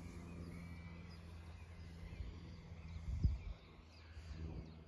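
Electric RC model plane's motor and propeller droning steadily in the distance, fading out a little past halfway and coming back near the end. Faint bird chirps sound over it, and there is a brief low bump about three seconds in.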